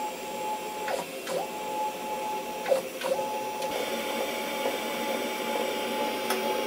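Stepper motors of a homemade CNC router driving its axes: a steady whine that dips in pitch and climbs back four times in the first three seconds as the moves stop and start. A second, higher whine joins about four seconds in.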